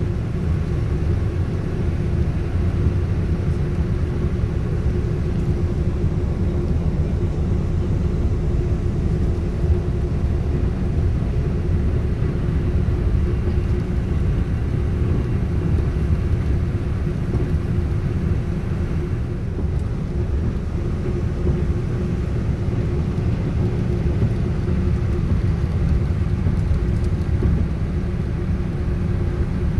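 Airport apron machinery: a steady low rumble with a constant hum, as from parked airliners' auxiliary power units and ground-service vehicles, holding level throughout.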